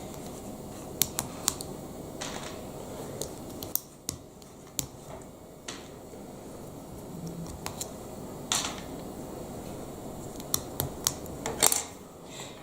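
Small plastic Lego Technic parts being handled and snapped together: scattered sharp clicks with a few brief rustles of pieces being moved.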